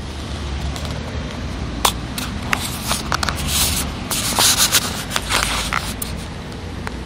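Rubbing and rustling against the microphone with scattered sharp clicks, loudest from about three and a half to five seconds in, over a steady low rumble.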